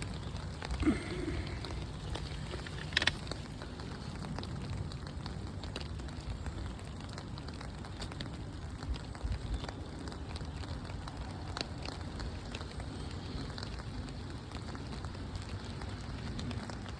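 Steady outdoor rustling noise with scattered light clicks and crackles, and one sharper click about three seconds in.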